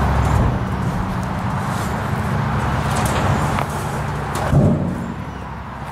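Large rusty steel tank being shoved across wooden boards, scraping and grinding, with a heavy thump about four and a half seconds in. A steady low hum runs underneath.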